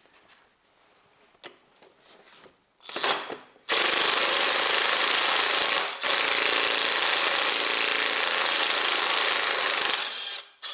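Cordless impact wrench hammering a 14 mm engine-mount bolt loose: a short burst about three seconds in, then about six seconds of continuous hammering with a brief break in the middle, stopping near the end. A few faint clicks come first, as the socket is fitted.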